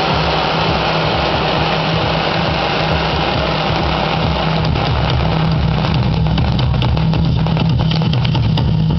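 Stage firework fountains (gerbs) spraying sparks with a loud, steady hiss, over a low steady drone. From about five seconds in, many sharp crackles join it.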